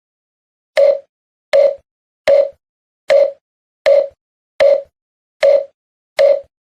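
An edited-in sound effect: a short, identical blip repeated eight times at an even pace of a little more than one a second, with digital silence between.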